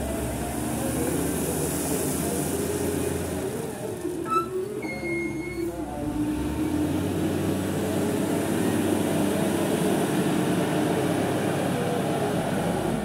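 SDLG LG936L wheel loader's diesel engine working under load as the bucket digs into a gravel pile, then running louder as the loaded machine drives away. A short high beep sounds about five seconds in.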